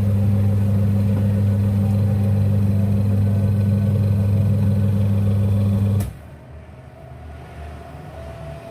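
Twin-tub washing machine motor running on its new capacitor, giving a loud steady electric hum. It stops abruptly about six seconds in, leaving a much quieter sound.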